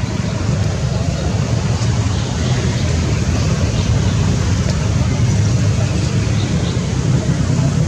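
A steady low rumble with a fainter hiss above it and no distinct events.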